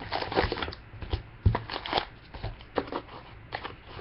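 Trading card packs and cards being handled at close range: irregular rustling and clicking, with a sharper knock about one and a half seconds in.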